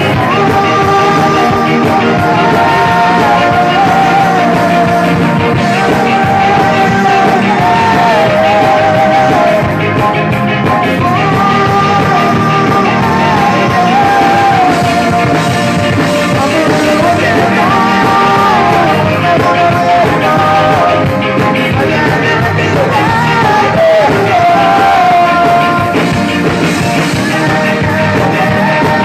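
A live band playing amplified music with drums, and a male singer singing a wavering melody into a microphone over it.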